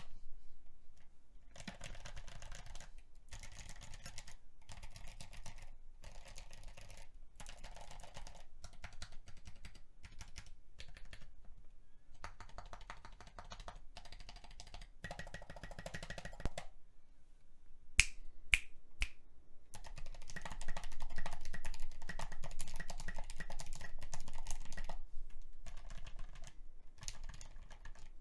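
Typing on a mechanical keyboard fitted with Mint switches, 68 g springs in teal polycarbonate housings: bursts of rapid keystroke clacks with short pauses between them. About two-thirds of the way through come three sharp, louder clicks.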